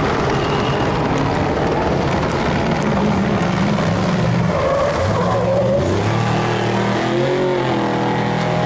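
Off-road race truck's engine running loud as it races by on the dirt course, with heavy rough noise from the truck. A steady pitched engine note comes through from about halfway in.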